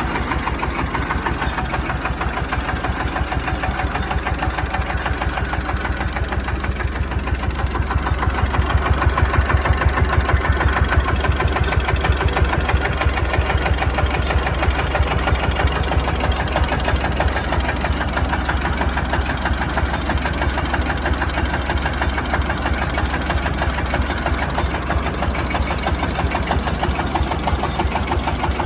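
JD300 30 hp single-cylinder diesel engine running steadily, its firing heard as an even run of rapid pulses. It gets a little louder about a third of the way in, then settles back.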